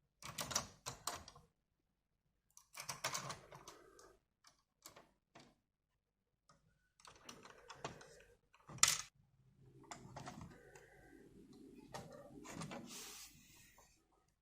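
Several bursts of quick clicking and rattling, with gaps between them, then a longer, softer rustle with more clicks near the end.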